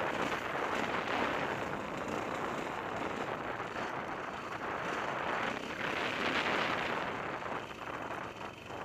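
Dirt bike engine running while riding, heard from a camera mounted on the bike as a dense, rough noise that dips briefly near the end.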